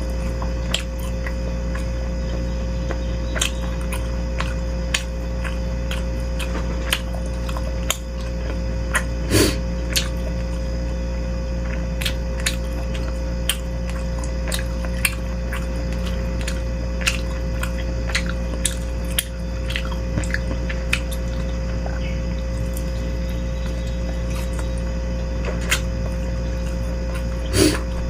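Eating sounds from a bowl of beef-rib meatball soup: chewing, sipping of broth, and many short sharp clicks of a spoon against the bowl, two of them louder, about nine seconds in and near the end. A steady hum runs underneath.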